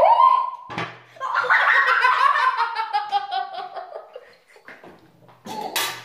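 A girl laughing hard in a long run of ha-ha pulses that falls in pitch. It follows a high held squeal at the start and a single sharp smack a little under a second in.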